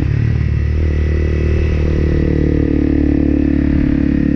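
Honda CRF250L's single-cylinder four-stroke engine running at a steady note while the motorcycle cruises along the road.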